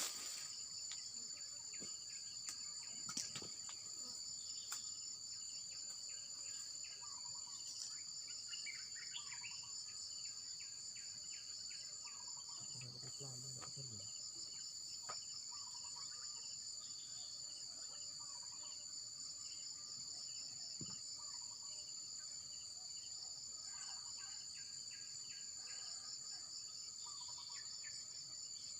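Insects, crickets among them, trilling steadily in two shrill high-pitched bands, with faint short chirps scattered through.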